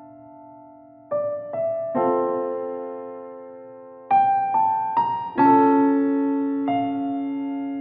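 Background piano music: slow, gentle single notes and chords, each ringing on and fading.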